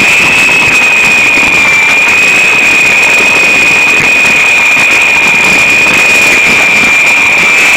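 Small indoor RC helicopter's electric motor and rotor running with a steady high-pitched whine over a dense hiss, very loud and harsh on the phone recording.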